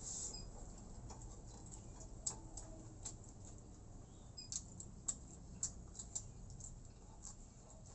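Close-up eating sounds: a person chewing, with scattered sharp wet mouth clicks and smacks at irregular intervals, mostly from about two seconds in.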